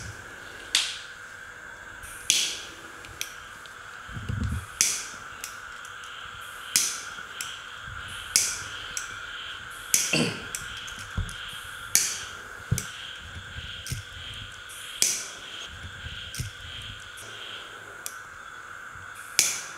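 A handheld lighter struck again and again to light candles: sharp clicks, about a dozen of them, spaced every couple of seconds, each with a brief bright ring.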